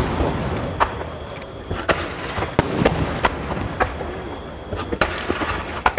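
Aerial firework shells bursting in a rapid barrage: a string of sharp booms, several a second, over a continuous rumble and crackle.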